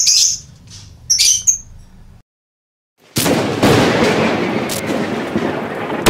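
Two short, high chirps from caged domestic canaries, about a second apart. After a brief dead silence, a loud, noisy explosion-like whoosh sound effect starts suddenly about three seconds in and keeps going.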